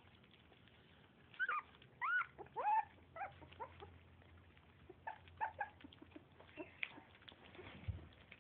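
Pitbull–Lhasa Apso mix puppy whimpering: a quick run of short, high-pitched cries that rise and fall, strongest between one and three seconds in, then softer, scattered whimpers.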